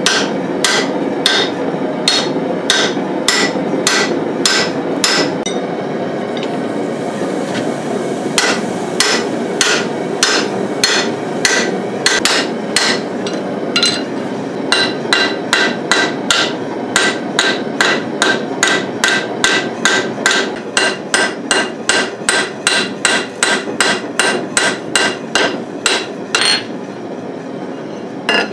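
Hand hammer striking a punch and drift driven into a red-hot steel hammer head on an anvil, opening the hammer's eye. The blows ring and come steadily about twice a second. They pause briefly about five seconds in, then return faster, nearly three a second, until shortly before the end.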